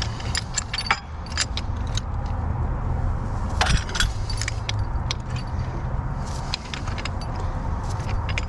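Irregular metallic clicks and clinks of a pipe wrench gripping and turning a threaded fitting on a gas meter's steel piping, over a steady low rumble.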